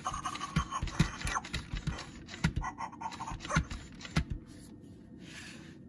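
FurReal Friends JJ My Jumping Pug toy dog playing a recorded panting sound through its small speaker after its head sensor is touched, with several short knocks from its motor mechanism as it bobs and hops.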